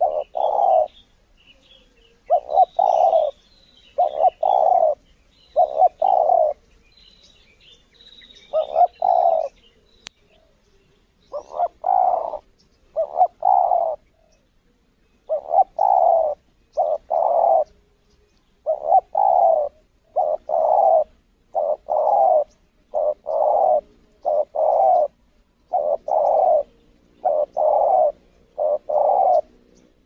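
Spotted dove cooing again and again, short two- and three-note coos about every one to two seconds. Faint chirps of small birds come through in the first ten seconds.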